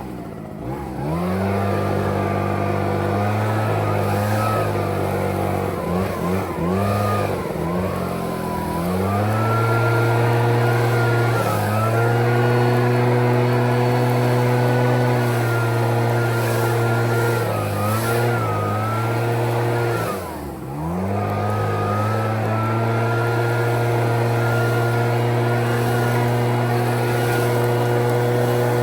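ECHO PB-9010T backpack leaf blower's two-stroke engine running with the throttle worked up and down: long stretches held high, with several brief drops, the deepest about 20 seconds in before it climbs back up.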